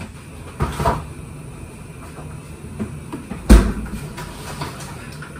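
A few light knocks and handling clatter about half a second to a second in, then a kitchen door shut with one heavy thump about three and a half seconds in, the loudest sound.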